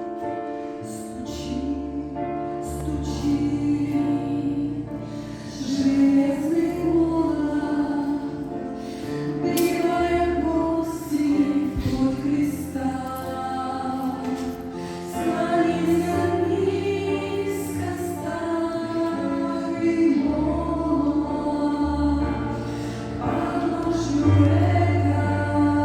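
A choir singing a Christian song, with low held bass notes under the voices.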